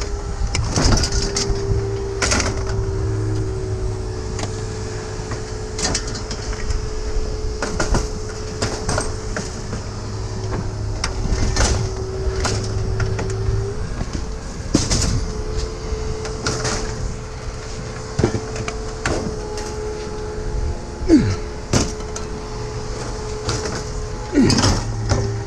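Scattered metal clanks, knocks and clicks of hand tools as a fan blade is worked off a motor for scrap, over a steady low hum.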